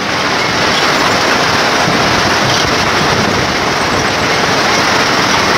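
Steady rushing road and wind noise of a moving vehicle, loud and even throughout, with no distinct knocks or rhythm.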